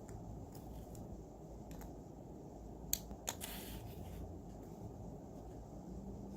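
Two sharp clicks about half a second apart, then a brief rustle, from hands handling a plastic spinning-top toy or its packaging, over a steady low background hum.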